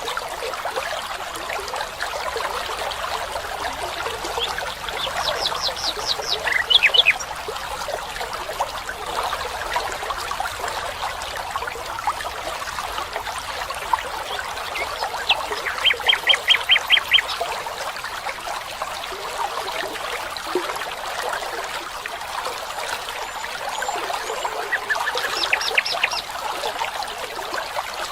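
Water trickling and running steadily, like a small stream. Over it a bird calls three times in quick bursts of short high notes, about half a dozen notes each, the loudest sounds here.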